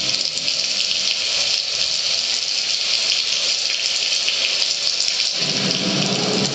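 A steady, loud hissing wash from the performance soundtrack over the gym's sound system, with the pitched music just faded out; about five seconds in a fuller low rumble joins it.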